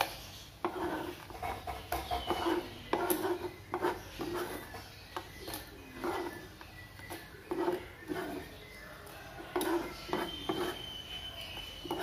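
Kitchen knife scraping and tapping on a plastic cutting board as chopped palm sugar is swept into a saucepan: a run of irregular short scrapes and knocks.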